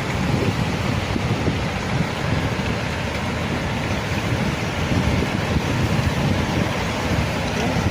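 Strong wind buffeting the microphone in a steady, uneven rumble, over a constant rush of sea noise.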